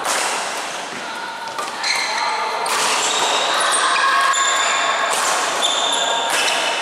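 Badminton doubles rally: rackets strike the shuttlecock several times, with sharp hits at the start and about two seconds in, while court shoes squeak in short high chirps on the court floor.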